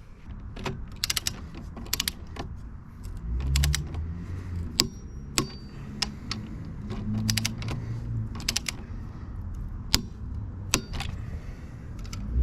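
Ratchet wrench clicking in short quick runs as the front brake caliper mounting bolts are run in, with several single sharp metallic clicks between the runs.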